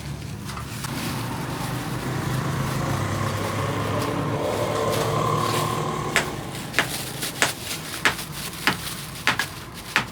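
A motor running steadily with a low hum that swells slightly mid-way. In the second half a string of irregular sharp knocks joins it, about ten of them.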